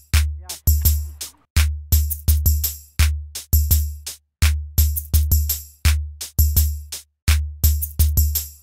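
Background music: a beat of deep bass kicks and crisp percussion hits, about two to three a second.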